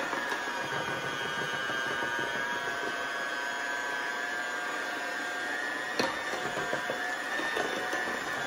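Electric hand mixer running steadily, its beaters whirring through cake batter in a glass mixing bowl, with one sharp knock about six seconds in.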